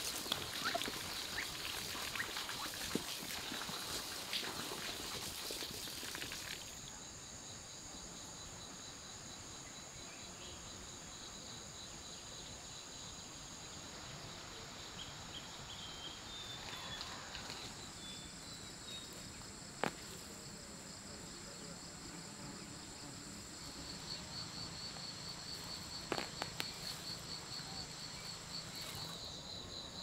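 Ducks pecking and dabbling at feed in a pan for the first few seconds. After that comes a steady, high-pitched chorus of insects, with a pulsing trill joining in about two-thirds of the way through and a couple of sharp clicks.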